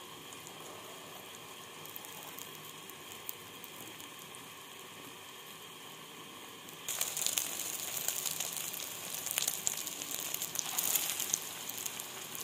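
Beaten egg mixture frying in oil on a flat iron tawa: a soft, steady sizzle. About seven seconds in it suddenly turns louder, with crackling and spitting, while a wooden spatula works under the egg to lift and turn it.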